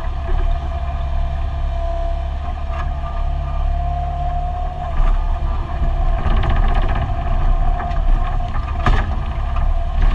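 Excavator's diesel engine running inside the cab, with a steady whine over the low rumble and a few sharp clanks as the arm and bucket dig, the loudest about nine seconds in.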